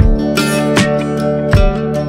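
Background music: acoustic guitar strumming with a steady beat.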